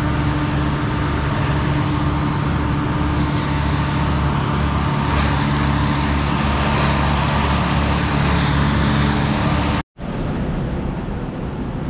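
An engine running steadily at a constant pitch. It cuts off abruptly near the end, giving way to a quieter, even rushing noise.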